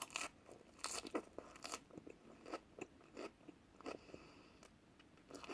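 A person chewing crunchy food: irregular crunching bites, loudest in the first couple of seconds and fainter after.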